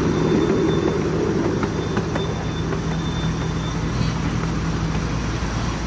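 Miniature railway train running: a steady low rumble of small wheels on the rails, with a few faint clicks.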